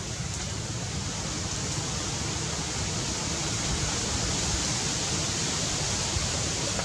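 Steady, even outdoor rushing hiss with no distinct events in it.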